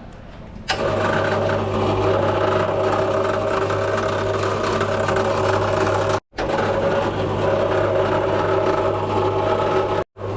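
A motor running with a steady hum, starting about a second in, with a brief break about six seconds in.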